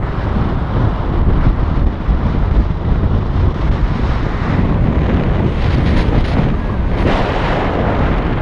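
Strong wind buffeting the microphone, a steady low rumbling roar with small gusty swells.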